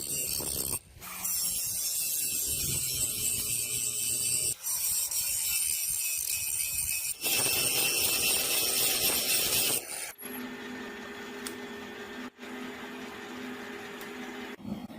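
Workshop tool work on metal heard in short edited clips that cut abruptly one to the next: harsh, hissing scraping or abrading for the first ten seconds, then a steadier, quieter machine hum with a faint hiss.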